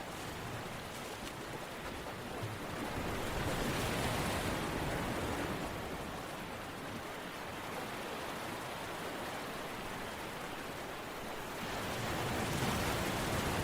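Steady rushing water, an even hiss that swells louder about three seconds in and again near the end.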